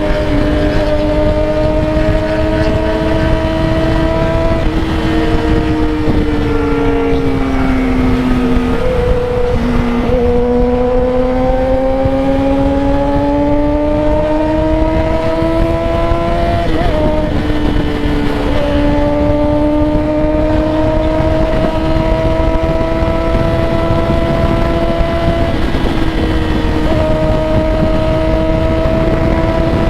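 Sport motorcycle's inline-four engine running at road speed, its pitch climbing and falling, with several short breaks where it changes gear. Heavy wind rush on the microphone underneath.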